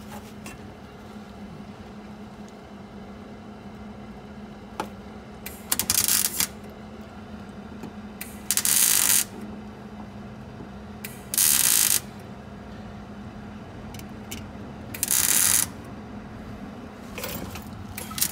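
Wire-feed (MIG) welder tack-welding a new steel floor pan into place: four short bursts of crackling arc, each under a second, a few seconds apart.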